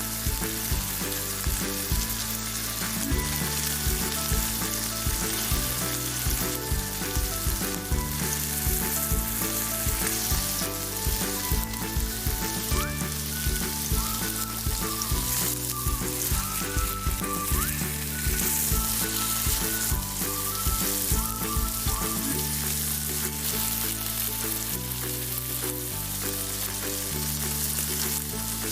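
Food sizzling as it fries in a pan, over background music with a steady bass line.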